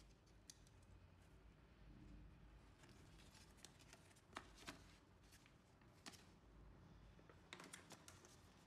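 Faint crackling and rustling of a folded paper instruction manual being unfolded and handled, with a few sharper crinkles around the middle and a small cluster near the end.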